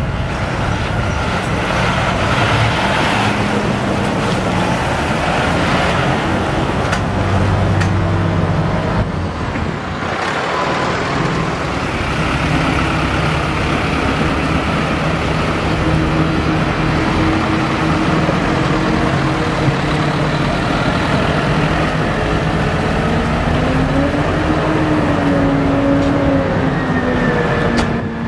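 Diesel engines of farm tractors running as they drive past one after another. The engine note climbs and drops back once, as a tractor is throttled up, a few seconds before the end.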